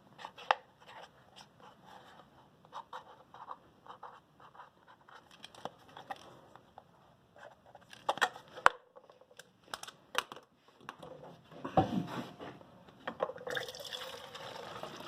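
Small clicks and knocks of a container being handled, with a heavier knock about three-quarters in. Near the end comes a steady hiss like liquid being poured into the container.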